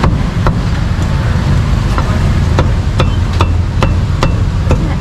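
Cleaver chopping roasted meat on a board: about nine sharp strikes, roughly two a second, coming quicker in the second half.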